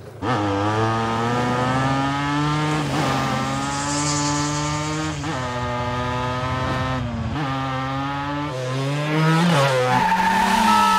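Motorcycle engine accelerating hard through the gears, its pitch dropping at each shift every two to three seconds, with a brief high squeal about four seconds in. Music comes in near the end.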